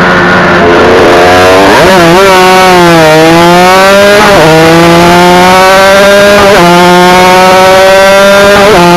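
Yamaha TZR250 two-stroke twin racing engine heard from on board at full race pace. It eases off through a corner, then accelerates hard with rising revs. The revs drop sharply three times in a row, about every two seconds, as it shifts up a gear, over loud wind rush.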